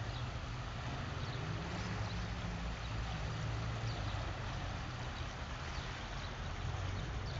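Sea water washing steadily with a constant low rumble underneath, and a few faint high chirps now and then.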